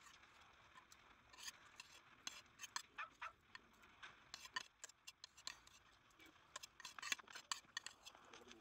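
Near silence: faint, irregular clicks and ticks over a low hiss.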